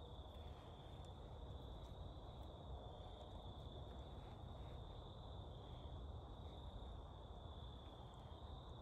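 Insects trilling in a steady chorus, one high, even tone that never breaks, over a faint low rumble.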